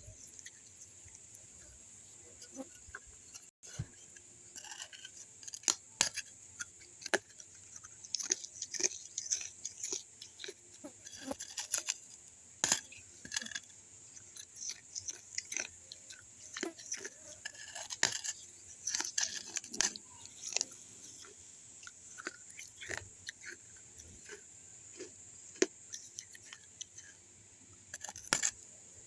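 Close-up chewing and crunching of broken pieces of a baked clay kulhad (terracotta cup): many sharp, irregular crunches, bunched in chewing runs.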